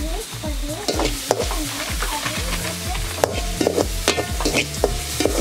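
Chopped onion, green chilli and curry leaves sizzling in oil in a metal kadai, with a spatula stirring and clacking against the pan several times, over background music.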